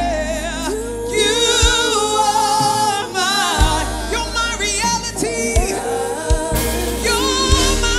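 Live gospel worship song: a female lead singer with vibrato and backing vocalists over band accompaniment with sustained bass notes and a few low thumping beats.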